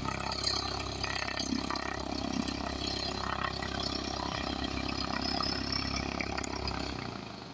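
Cessna 172 Skyhawk SP's four-cylinder piston engine and propeller idling steadily, then cutting off near the end as the engine is shut down.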